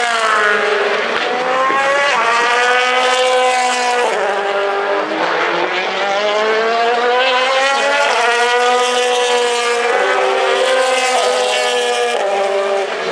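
DTM touring car's 4.0-litre V8 racing engine at full throttle, its pitch climbing through the revs and dropping sharply at each gear change, with a long, slow climb in the middle as it pulls out of a slow section.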